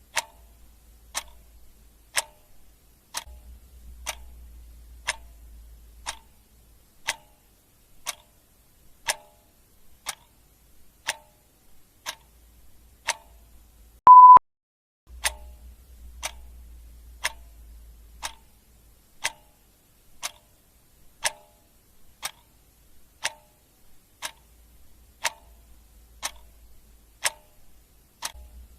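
Clock ticking steadily, about one tick a second. About halfway through, a single short electronic beep, the loudest sound.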